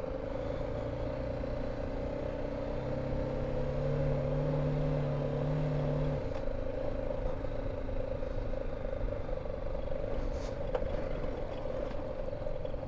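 BMW G310 GS motorcycle's single-cylinder engine running steadily as the bike climbs a stony off-road track, its note shifting lower for a few seconds in the middle.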